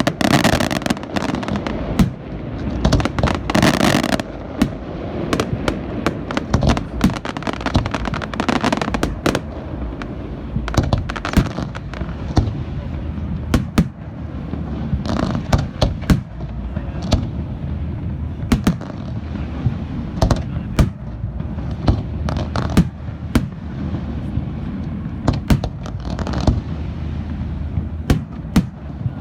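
Fireworks display: many shell bursts in quick succession, sharp bangs several a second over a continuous low rumble, densest in the first few seconds.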